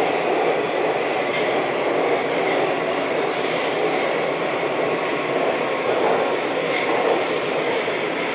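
Budapest Metro Line M4 train (Alstom Metropolis) running at speed through the tunnel, heard from inside the car: a steady rumbling roar, with two brief high-pitched squeals about three and a half and seven seconds in.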